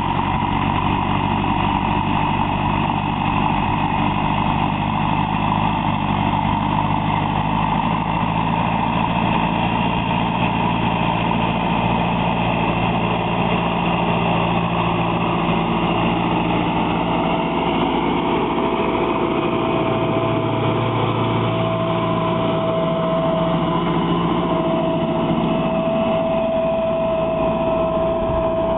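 Fendt 311 Vario tractor's diesel engine running steadily under load while it pulls a reversible plough through the soil and passes close by. A steady whine joins the engine sound about halfway through.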